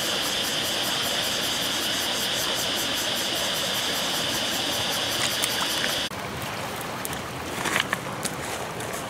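Shallow stream water running over stones, with a steady high-pitched buzz over it. About six seconds in the sound cuts abruptly to a quieter background with a few sharp crackles from a small wood fire.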